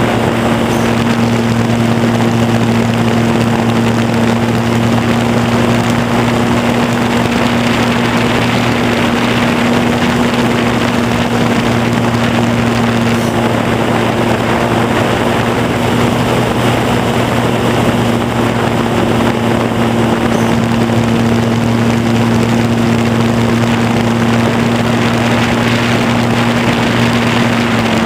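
RC Super Cub model airplane's motor and propeller running at a steady, even pitch, heard from the camera mounted on the plane, with wind rushing past.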